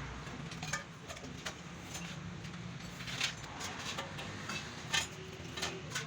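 Scattered light metallic clinks and clicks of tools and engine parts being handled, a few spread over several seconds, over a steady low hum.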